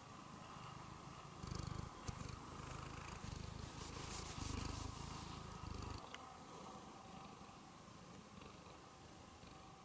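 Silver tabby cat purring close to the microphone, loudest from about one and a half to six seconds in, with soft rubbing noise as its face brushes against it.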